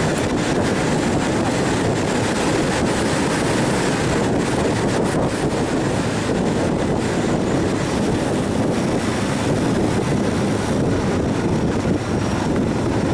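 Suzuki DR650 single-cylinder dual-sport motorcycle riding at a steady cruising speed: a constant rush of wind on the microphone mixed with engine and road noise, with no changes in pace.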